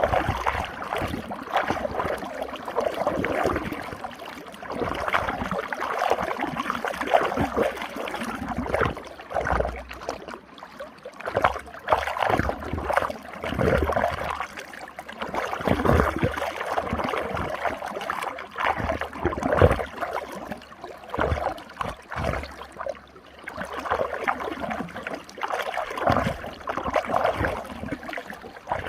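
Running water swirling in a whirlpool, gurgling and splashing in uneven surges that rise and fall every second or two.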